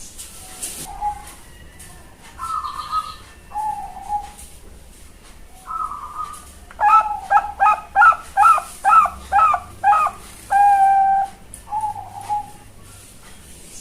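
Young Bangkok-strain zebra dove (perkutut) cooing: a few single short coos, then a quick run of about eight clipped coos that ends in one longer held note, then more short coos.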